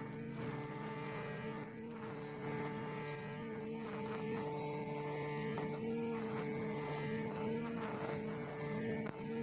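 Brush cutter with 2.2 mm nylon trimmer line running at a steady high speed while cutting long grass, its small engine giving an even buzz.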